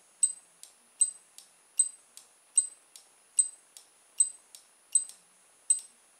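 Small 12 V relay on a breadboard timer circuit clicking on and off over and over: a sharp, high-pitched click about every 0.8 s with a fainter click between each pair. The circuit is retriggering on its own, toggling the digital stopwatch start and stop.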